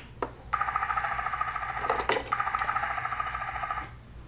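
Electronic sound effect from the battery-powered Thomas & Friends Discover Junction Tidmouth Sheds playset's small speaker: a rapid, pulsing two-tone ringing that starts about half a second in. It breaks off briefly with a couple of clicks about two seconds in, then stops just before the end.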